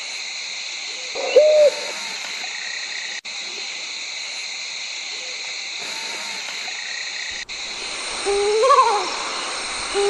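Mottled wood owl calling: a short hoot about one and a half seconds in, then near the end a louder quavering hoot that rises and falls in pitch, over a steady high-pitched hiss.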